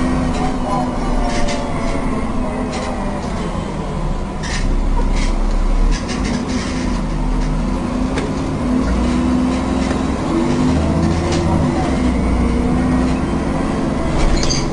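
Alexander Dennis Enviro 400 double-decker bus driving, heard from inside the passenger saloon: the engine and transmission whine rises and falls in pitch as the bus pulls away and changes speed, over a heavy rumble with occasional rattles from the interior fittings.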